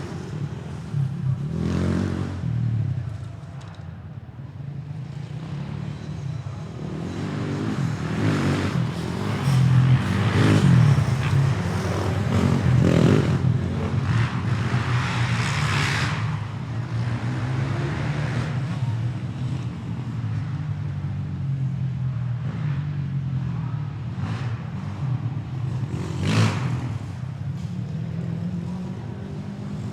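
Motorcycle engine running and being revved, with louder surges a couple of seconds in, around the middle and again near the end.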